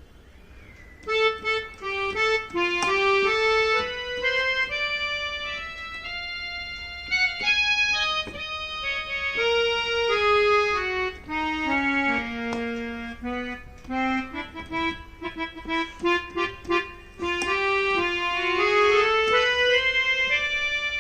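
Yamaha PSR-i400 portable keyboard playing a single-note melody in its harmonium voice, with held reedy notes stepping up, then down, then up again. It begins about a second in.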